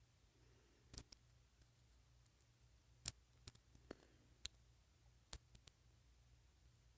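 Scattered small clicks and taps of a small plastic doll and its tiny clothes being handled, about eight in all, the loudest about a second in and about three seconds in.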